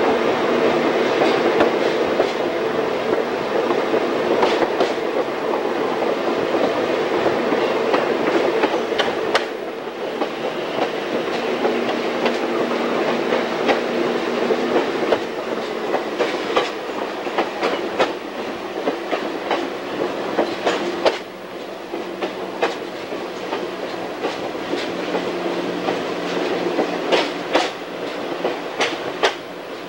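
Train cars rolling along the track: a steady rumble of wheels on rail with the clickety-clack of wheels crossing rail joints, the clicks coming at uneven intervals.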